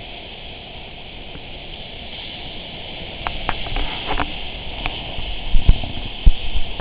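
Strong wind buffeting the microphone: a steady hiss with rumbling, a few sharp clicks a little after the middle, and two heavy gust thumps near the end.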